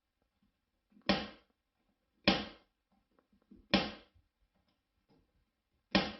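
Four short, loud calls from an animal, one to two seconds apart, each with a sharp start that quickly fades.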